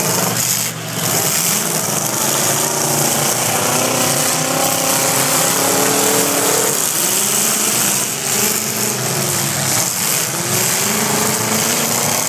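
Engines of several stock-class demolition derby cars revving, their pitches rising and falling and overlapping, over a steady wash of noise.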